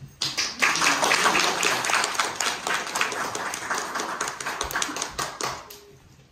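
Audience clapping, rising sharply a moment in and fading away near the end.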